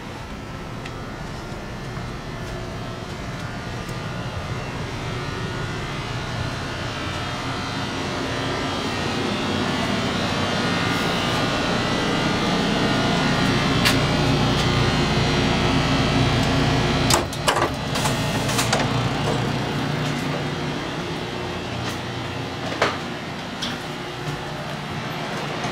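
Steady hum and rushing of a passenger sleeping car's ventilation and machinery, growing louder as the car's end is neared. A quick cluster of sharp clicks of door hardware comes about two-thirds of the way through, and a single click near the end.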